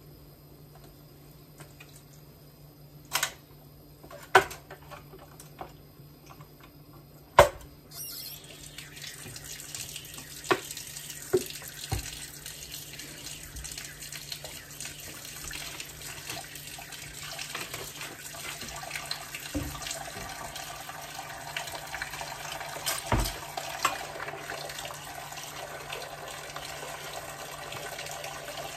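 Dishes and utensils clinking in a kitchen sink during hand washing. About eight seconds in, the faucet comes on and water runs steadily into the sink, with more clinks of dishes under the running water.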